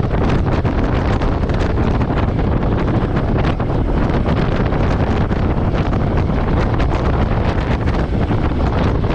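Royal Enfield Meteor 350 motorcycle riding at a steady pace, its single-cylinder engine running under a loud, steady rush of wind on the microphone.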